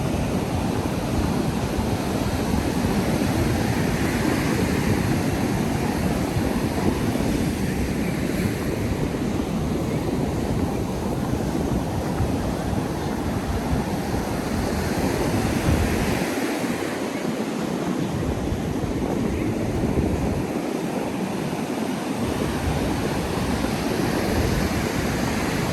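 Ocean surf breaking and washing onto a sandy beach in a steady wash of noise that swells and eases. Wind buffets the microphone as a low rumble that drops out briefly twice in the second half.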